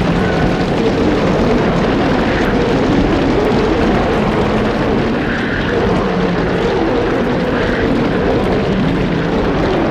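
Sound effect of a group of lions growling and roaring over one another, making a continuous loud rumble with wavering pitches.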